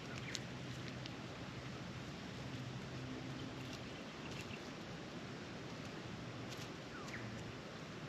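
Soft rustling in a hay bale's straw with a few light ticks, as an Australian magpie forages and pecks for cockroaches, over a steady outdoor hiss. Two short, high falling chirps, one near the start and one near the end.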